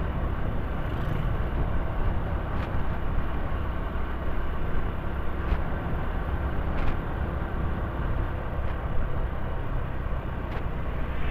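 Steady rush of wind and road noise from a motorcycle ride, picked up on the rider's microphone while riding at an even pace.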